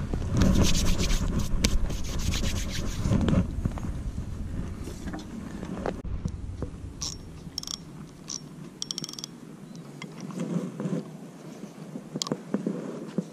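Handling a spinning rod and reel: scraping and rubbing for the first few seconds, then scattered sharp clicks and a quick run of ticks from the reel's mechanism as it is worked before the cast.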